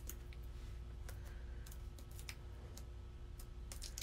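Light, scattered clicks and taps of hands handling small paper pieces and crafting supplies on a tabletop, over a faint steady hum.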